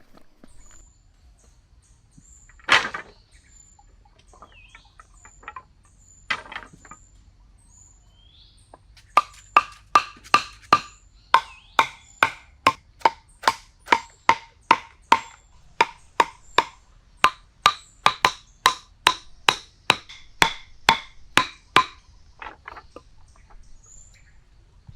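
A series of sharp, ringing knocks: two single louder ones, then a fast even run of about two or three knocks a second that lasts some thirteen seconds and stops.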